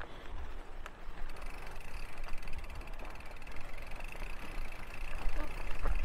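Mountain bike rolling over a dirt trail: a steady low rumble of tyres and riding, with a couple of sharp clicks and rattles. A steady high-pitched buzz comes in about a second in and holds.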